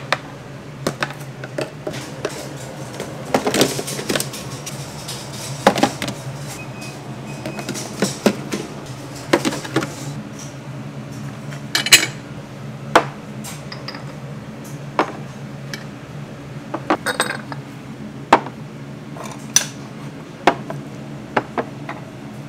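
Ceramic bowls and small dishes clinking and knocking as they are handled and set down. Sharp clinks come every second or so over a steady low kitchen hum.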